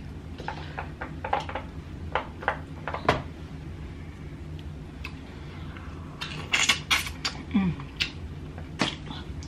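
Mussel shells and seafood being handled on a serving platter: scattered sharp clicks of shell against shell and plate, with a quicker cluster of clicks about six to eight seconds in.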